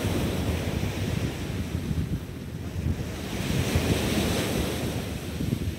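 Wind rumbling on the microphone, with a hissing wash of noise that swells from about three to five seconds in.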